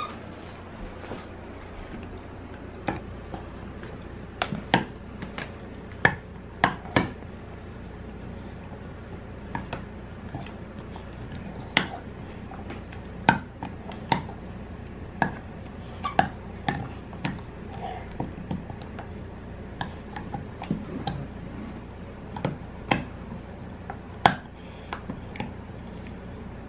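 A large pit bull chewing a tough red rubber chew toy: irregular sharp clicks and clacks of teeth on the hard rubber, at most a few a second, over a low steady hum.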